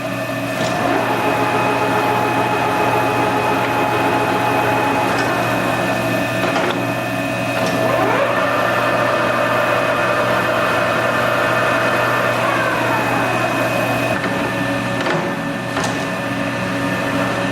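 American engine lathe running under power, its gearing giving a steady whine made of several tones. The tones shift a few times, with a rising glide about eight seconds in and a falling one near twelve seconds, and a few sharp clicks.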